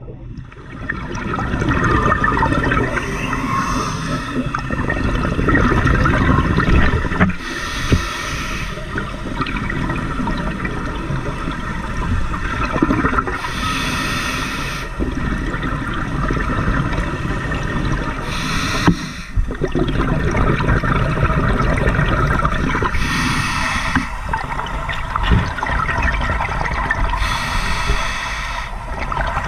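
Scuba breathing through a regulator underwater: a steady low rush with a gush of exhaled bubbles about every four to five seconds, six times in all.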